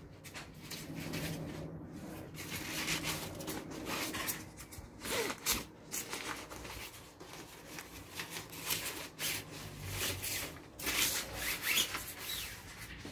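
Irregular rustling and rubbing handling noise, in uneven scrapes and brushes.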